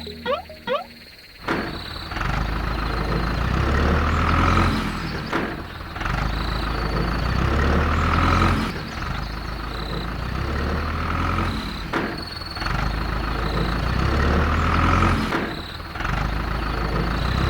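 Heavy truck engine running, its sound swelling and easing in a repeating cycle about every three and a half seconds, with short high beeps now and then.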